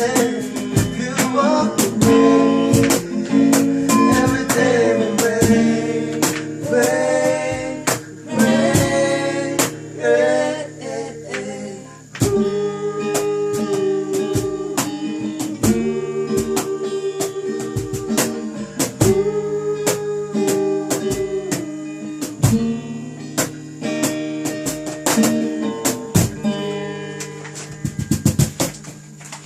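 Song played on strummed guitar, with a sung vocal line in roughly the first ten seconds, then longer held notes over the strumming. It grows quieter near the end as the song closes.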